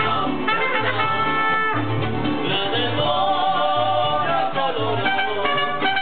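Mariachi band playing live: a guitarrón plucking a steady, regular bass line under strummed vihuela, with trumpet and singing.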